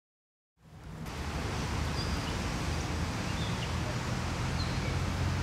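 Silence, then about half a second in an outdoor background fades in: a steady rush of noise over a low steady hum, with a few short high bird chirps.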